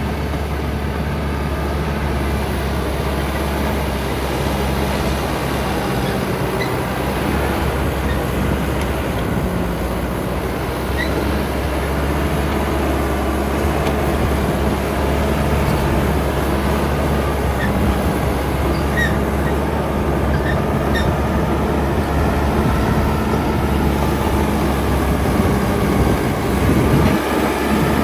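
Caterpillar D6R XL crawler bulldozer working: its diesel engine runs steadily under load, with brief high squeaks from the steel tracks now and then. It grows a little louder in the second half.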